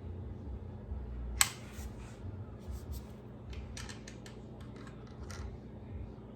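Scissors cutting open packaging: one sharp snap about a second and a half in, then a run of short, crisp snips.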